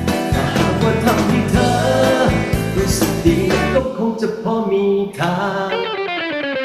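Music with singing: a sung melody over instruments, the bass dropping out about four seconds in.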